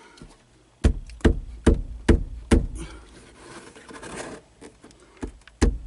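Sharp knocks as the interior window trim of a Mercedes-Benz R107 is worked loose: five about half a second apart, then a stretch of light scraping and a few softer knocks, with one more strong knock near the end.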